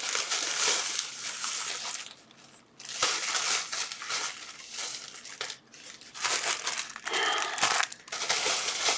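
A parcel's packaging crinkling and rustling as it is handled and turned over, in several bouts with a short pause just after two seconds in.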